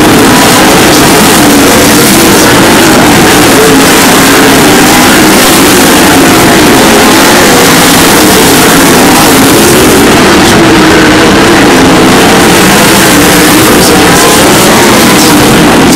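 A pack of 360 sprint cars racing, their V8 engines very loud and continuous, the engine notes rising and falling as the cars come off and onto the throttle around the track.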